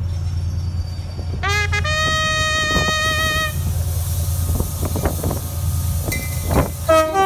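DRS Class 68 diesel locomotive arriving slowly, its engine a steady low drone, sounding its two-tone horn: a short low note then a long high note in the first half, and a high-then-low blast near the end, with a few clanks of the train in between.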